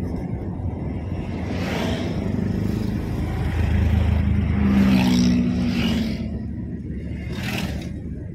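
Car driving along a road: steady low engine and road rumble, with several brief rushing swells as oncoming vehicles pass. The loudest stretch comes about halfway through.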